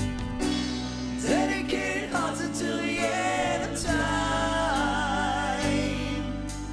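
Background music: a slow love song, a singer holding long notes with vibrato over steady bass and light percussion.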